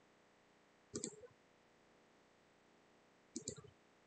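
Faint computer mouse clicks: a short cluster about a second in and another near the end, over quiet room tone.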